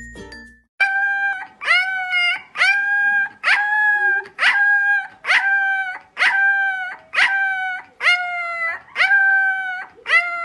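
Young puppy howling in a series of short, high-pitched howls, about one a second, each swooping up at the start and then holding its pitch.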